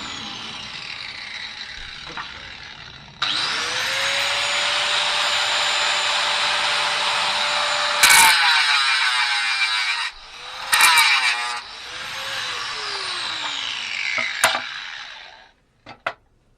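Angle grinder cutting metal plate. It is winding down at first, spins up again about three seconds in and runs with a steady high whine, then bites into the metal in louder harsh bursts twice before winding down near the end.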